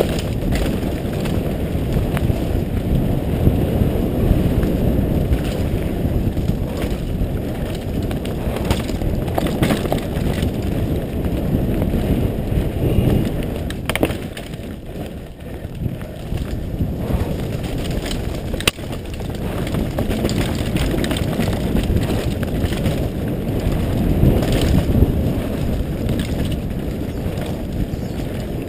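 Mountain bike rolling fast down a dirt trail, heard from a helmet camera: a steady rumble of tyres and wind on the microphone, with scattered sharp clicks and rattles from the bike over bumps. It eases for a few seconds about halfway through.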